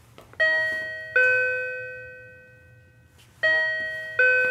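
Two-note ding-dong intercom door chime, rung twice: each time a higher note and then a lower one that rings out and slowly fades.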